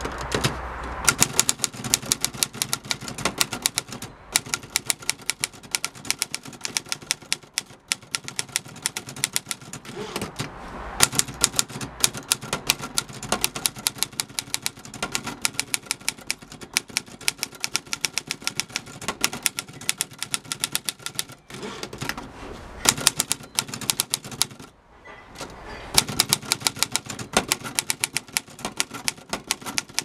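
1963 Olivetti Lettera 22 portable manual typewriter being typed on: fast runs of sharp key and typebar strikes on the platen, broken by a few short pauses.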